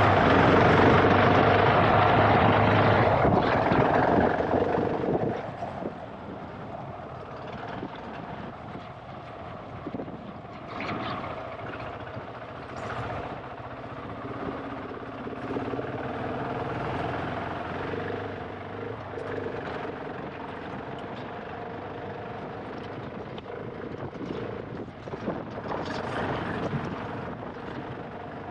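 GasGas ES700 enduro motorcycle's single-cylinder four-stroke engine being ridden: loud for the first five seconds or so, then quieter, its pitch rising and falling with the throttle.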